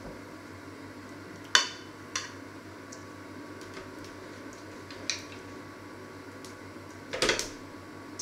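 A metal spoon clinks against a small metal baking tin as meat is basted, a few sharp separate clinks. Near the end comes a short cluster of knocks and scrapes as the tin is moved on the ridged metal grill tray. A faint steady hum runs underneath.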